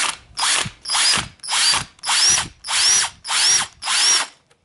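Cordless drill with a step drill bit cutting into a mechanical fuel pump's metal housing, run in about seven short pulses of the trigger. Each burst carries a brief rising whine as the motor spins up.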